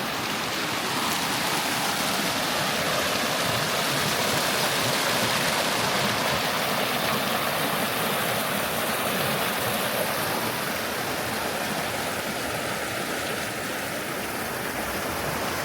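River water rushing steadily, a continuous even wash of flowing water.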